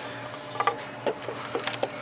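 Scattered light knocks and taps of wood and parts being handled, over a faint steady hum.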